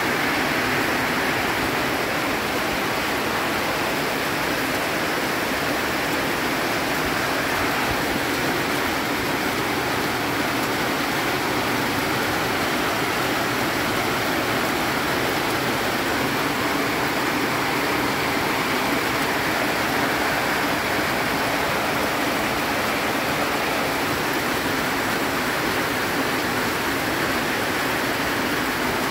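Heavy rain pouring down steadily: a dense, even hiss of falling water.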